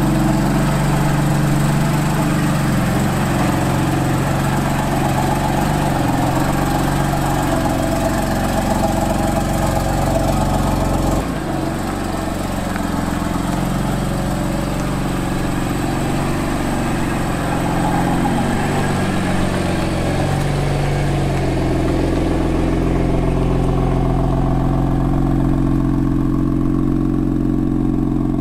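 BMW M3's twin-turbo straight-six engine running at idle and low revs as the car is driven slowly, with a steady even note; the sound shifts abruptly about eleven seconds in.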